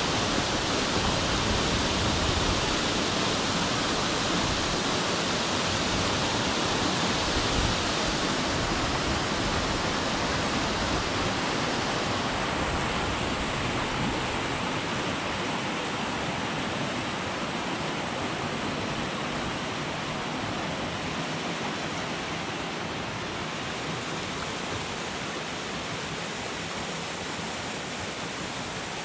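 Waterfall pouring off a rock face into the sea: a steady rush of falling water that slowly grows fainter.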